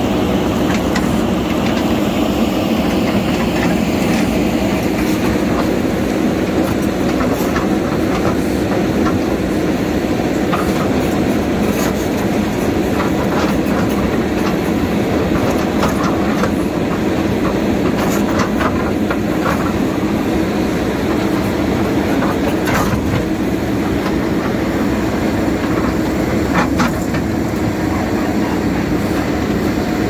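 JCB 3DX backhoe loader's diesel engine running steadily under load while the backhoe digs, with scattered clicks and clanks of the bucket scraping soil and stones.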